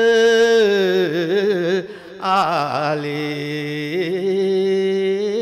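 A man's solo voice chanting a line of a Sinhala love ṭīkā verse in the traditional sung style, holding long notes with wavering ornaments, with a short breath about two seconds in.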